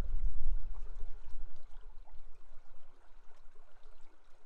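River water flowing in a steady rushing wash, with a low rumble that is strongest in the first second and a half and then eases.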